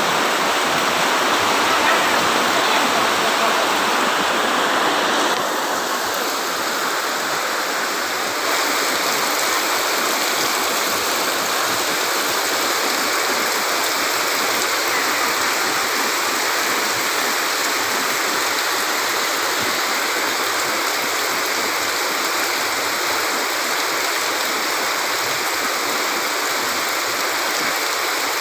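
Heavy rain pouring down, a dense, steady hiss that drops a little in level about five seconds in.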